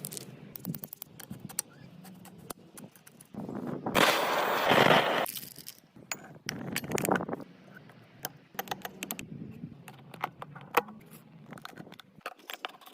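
Workshop sounds of metal parts and tools clinking and clicking, with a loud hiss lasting about a second, about four seconds in, and a shorter one about seven seconds in.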